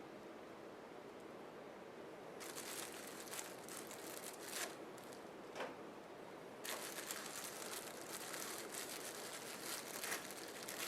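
Faint crinkling and rustling of hands handling small crafting pieces, with a few light clicks. It starts about two seconds in and grows busier after the halfway point.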